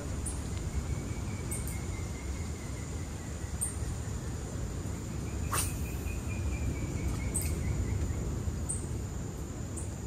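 Insects calling: a steady high insect drone with short, high chirps every second or two, over a low rumbling background. A single click comes about halfway through.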